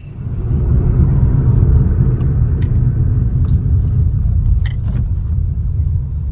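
A steady low rumble that starts suddenly and holds, with a few faint clicks over it.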